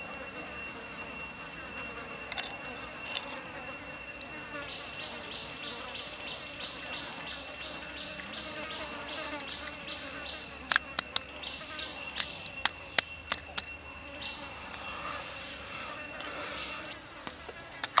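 Insects chirping in the forest: a steady high trill throughout, with a second insect pulsing about three times a second through the middle. A short run of sharp clicks about two-thirds of the way in are the loudest sounds.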